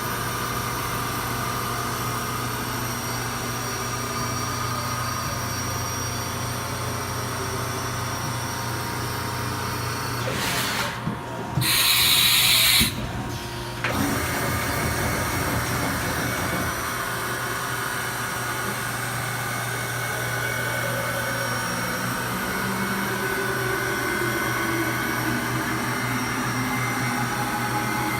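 Haas VF-3B CNC vertical machining center running a program: a steady hum of the machine under power with the spindle and axis drives. A louder rushing noise lasts about three seconds near the middle.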